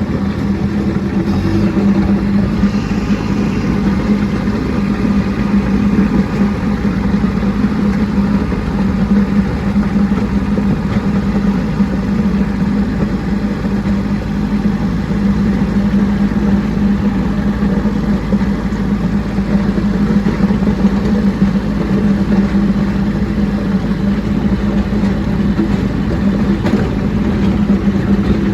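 Kubota B2601 compact tractor's three-cylinder diesel engine running steadily while the tractor plows snow with its blade.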